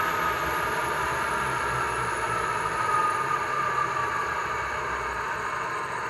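Recorded EMD 16-710G3C diesel prime mover of an SD90/43MAC, played by a LokSound 5 decoder through the model locomotive's small speaker, running steadily with a whine that slowly drops in pitch.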